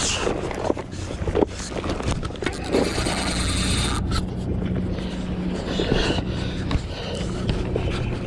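Cloth and hand rubbing and scraping against a body-mounted camera's microphone, with wind, over a steady low hum. About three seconds in there is a dense hiss lasting a little over a second.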